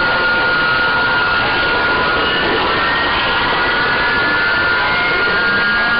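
CB radio receiver on AM channel 6 giving out a loud, steady rush of noise with several thin whistles held over it, the sound of an open keyed-up channel with overlapping carriers beating against each other.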